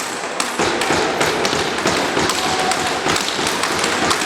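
Basketball being dribbled and passed during play: a quick, uneven run of sharp taps and thuds over a steady hall background.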